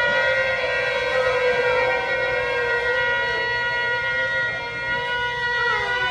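Several shofars blown together in one long held blast, a cluster of different pitches sounding at once. Near the end some of the notes waver and slide downward as players drop off.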